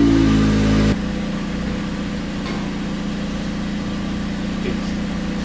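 Toyota Harrier (80 series) engine, just started, running through a freshly fitted Esprit quad-tip slide muffler. Its raised start-up idle falls and drops abruptly to a steady idle about a second in. The engine is run so the new exhaust joints can be checked for leaks.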